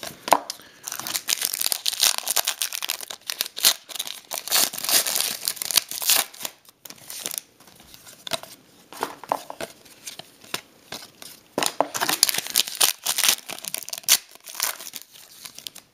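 Trading-card pack wrappers crinkling and tearing as cards and packaging are handled, in two long spells of dense crackle, the first from about a second in to past the middle and the second near the end.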